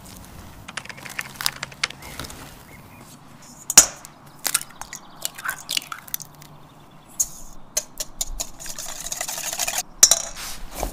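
Eggs tapped and cracked into a stainless steel mixing bowl: sharp taps and clinks on the metal, the loudest about four seconds in. Near the end comes a stretch of fast scraping as the eggs are beaten in the bowl.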